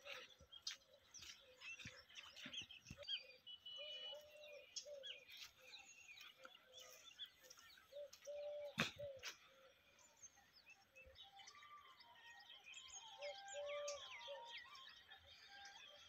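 Faint chorus of birds chirping and trilling, with a low short note repeated over and over under the high chirps. A single sharp click about nine seconds in.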